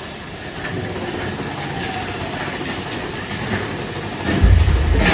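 Roller-coaster mine train running along its track, with its wheels clattering over the rails. About four and a half seconds in, a much louder low rumble sets in.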